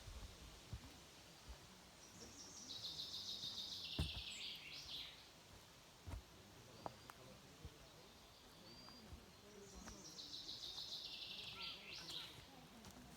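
A songbird singing twice, each song a rapid trill of repeated notes that falls in pitch and ends in a short flourish, about seven seconds apart. A faint background hiss runs throughout, and a short knock sounds about four seconds in.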